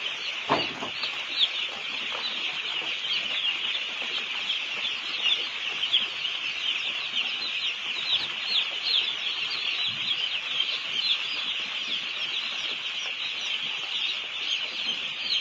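A large crowd of broiler chicks peeping continuously, many high, short, falling peeps overlapping into a steady chorus. A low thump comes about half a second in.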